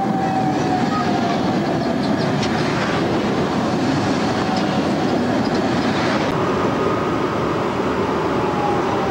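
Tram passing close by, its wheels rolling on the rails in a steady rumble, with a faint thin squeal from the wheels now and then.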